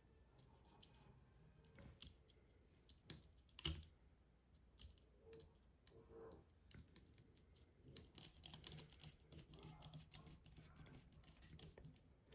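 Faint small clicks and taps of a driver bit and small screws being worked into a folding knife's handle during reassembly, with one louder click about three and a half seconds in and a run of quick ticks in the last few seconds.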